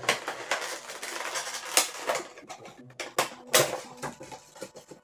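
Funko Pop vinyl figure being taken out of its cardboard box: rustling with a run of sharp clicks and knocks, the loudest about two seconds in and again after three and a half.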